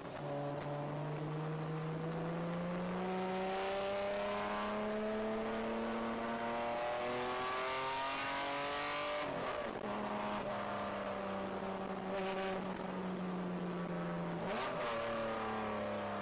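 Race car engine heard from inside the cockpit, climbing in pitch over the first few seconds and then holding a nearly steady note. There are two short breaks about nine and a half and fourteen and a half seconds in, over a steady hiss of tyres on the wet track.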